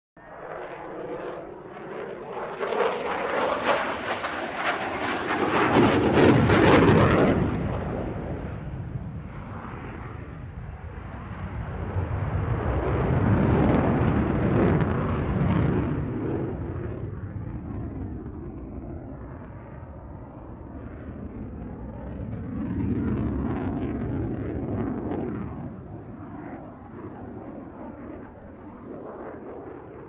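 F-16 single-engine fighter jet in a steep climb: continuous rushing jet noise that swells and fades three times, the first swell the loudest and brightest.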